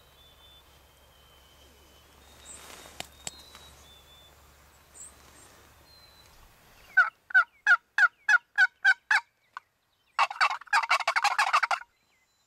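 Wild turkey yelps: about seven seconds in, a quick run of about nine evenly spaced yelps, then after a short pause a fast, dense string of calls that stops abruptly. Before them there is only a faint background with a few thin bird whistles.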